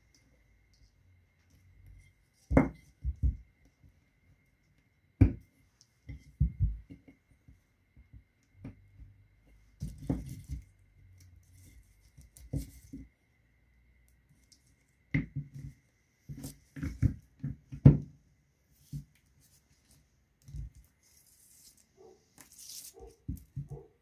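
Irregular knocks, taps and clicks of small parts being handled and fitted while a refrigerator fan motor is reassembled, with a few sharper knocks scattered among quieter handling sounds.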